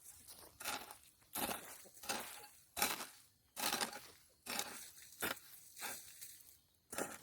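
A hand tool digging into soil in repeated crunching strokes, about one every three-quarters of a second.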